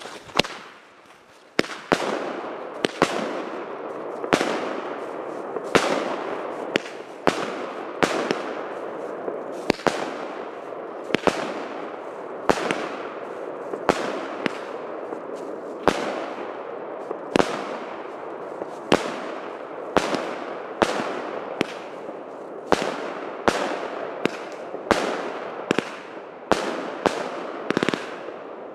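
Pyroco 'Lovec Duchů' firework cake firing a long run of shots: sharp bangs about one to two a second, with a steady hiss between them.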